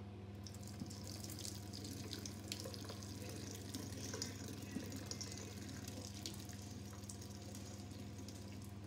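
Water pouring steadily from a saucepan, through the gap under its held lid, into a stainless steel sink: the cooking water being drained off frozen mixed vegetables.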